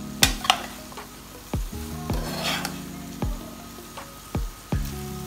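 Two metal spoons tossing cooked spaghetti in a non-stick frying pan: about seven spoon knocks against the pan, with scraping and stirring of the noodles and a light sizzle from the hot pan.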